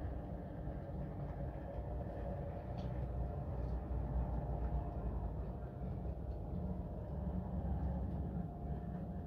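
Bachmann OO gauge Class 66 model locomotive running along the layout's track, a steady low rumble with a faint hum.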